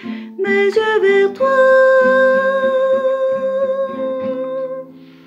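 A singing voice with plucked acoustic guitar finishing a hymn: a few short sung notes, then one long held final note from about a second and a half in, dying away near the end with the guitar.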